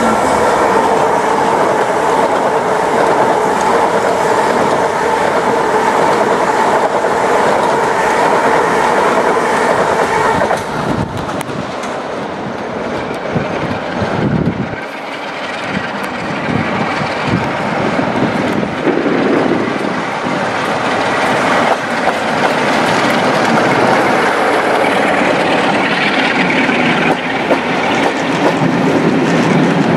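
Class 47 diesel locomotive 47580 hauling a train of coaches: its Sulzer twin-bank diesel engine working with a steady drone for about the first ten seconds. Then the train draws near and passes, its coaches' wheels clattering over rail joints and pointwork with a rising clickety-clack near the end.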